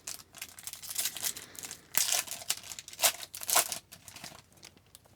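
Crinkling and tearing of a hockey card pack's wrapper as it is ripped open by hand, the loudest rustles coming in several swells through the middle before fading out.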